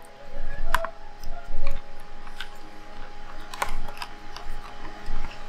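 Small clicks and ticks of a precision screwdriver and handling on a camera body as tiny screws around the eyepiece are backed out. The ticks are scattered and irregular, the sharpest about three and a half seconds in, with a few soft bumps in the first two seconds.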